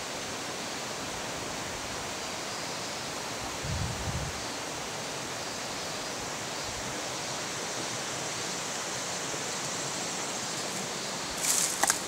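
Mountain river rushing in a steady wash of water noise. A few brief, sharp crackles come near the end.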